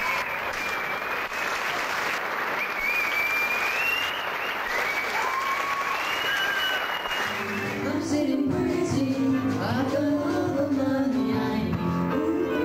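Audience and cast applauding at a school stage show. About seven and a half seconds in, the applause gives way to music with singing.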